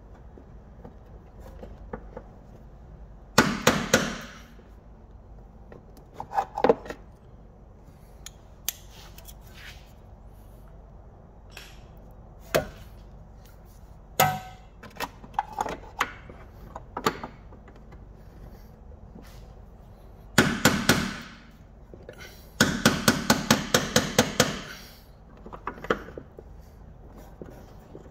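Hammer tapping a socket down onto a rusted shock-absorber top-mount nut: scattered metal knocks, then a fast run of about a dozen taps near the end.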